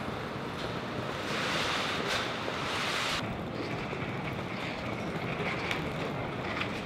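Steady rushing noise of outdoor air and traffic with wind on the microphone, swelling to a louder hiss for about two seconds starting a second in. A few faint taps sound in the second half.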